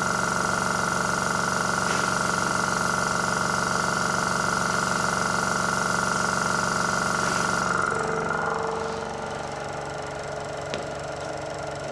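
Corded handheld electric power tool running at a steady speed with a high whine, switched off about eight seconds in and spinning down.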